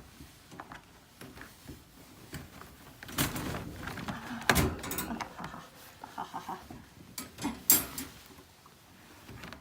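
Handling noises: rustling with scattered clicks and knocks, busiest from about three seconds in until about eight seconds in.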